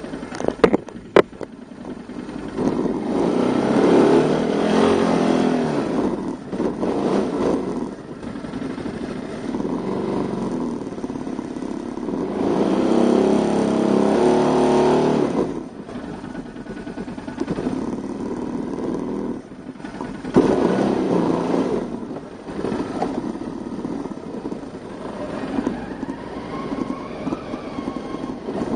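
Quad bike (ATV) engine running while riding, its note swelling and falling back as the throttle is opened and eased, in three louder stretches. A few sharp knocks sound about a second in.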